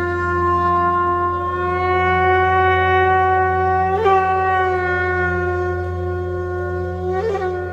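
Music: a horn-like wind instrument holds one long bright note, briefly breaking in pitch about four seconds in and again near the end, over a steady low drone.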